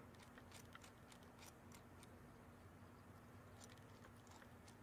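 Near silence: a few faint, irregular light clicks as a homemade oscillating (wobbler) steam engine is turned by hand, its cylinder rocking on its pivot, over a faint steady hum.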